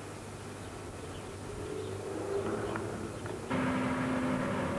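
Outdoor background with a few faint bird chirps, then an abrupt cut about three and a half seconds in to a hydraulic excavator's diesel engine running steadily.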